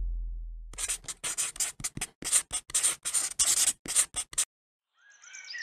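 The tail of a deep cinematic boom fades out, then a quick, irregular run of scratchy rubbing strokes, a scribbling sound effect, plays for about three and a half seconds as a brush-style title appears. It stops abruptly, and birds start chirping near the end.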